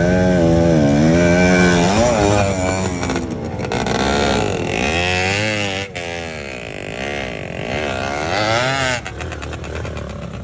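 Enduro dirt bike engine revving hard, its pitch rising and falling again and again as the throttle is worked, then dropping to a lower, choppier note near the end.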